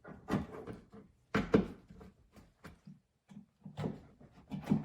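Plastic retaining clips being removed from a 2007–2011 Toyota Camry's trunk lid liner: several sharp plastic clicks and pops with handling noise between them, the loudest about a second and a half in.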